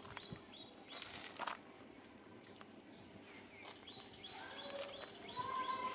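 Birds chirping outdoors: a short high note repeated several times a second, joined near the end by a louder, lower call. A brief sharp click about a second and a half in.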